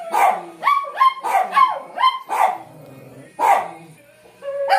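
Small dog barking: a quick series of short, sharp barks, then a pause of about a second before one last bark near the end.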